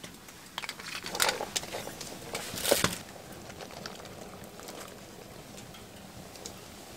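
Handling at a pot of soup: a soy sauce bottle and a plastic container clicking and knocking a few times, the loudest nearly three seconds in, over a steady soft hiss.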